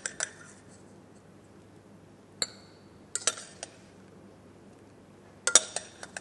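Metal spoon clinking against a stainless steel pot as cooked apple cubes are spooned out into a ramekin. The clinks come in a few short clusters, and one about two and a half seconds in rings briefly.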